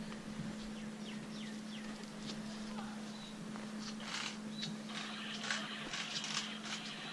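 Outdoor village ambience: small birds chirping in short calls over a steady low hum, with a run of crackly clicks and scuffs about four seconds in.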